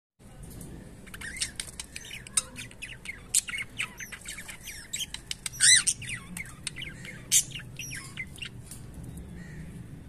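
Cockatiels chirping and squawking in a quick run of short, high calls, the loudest just under six seconds in; the calling thins out near the end.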